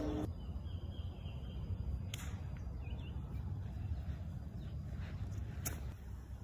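Outdoor background noise: a steady low rumble, two sharp clicks about three and a half seconds apart, and a few faint bird chirps.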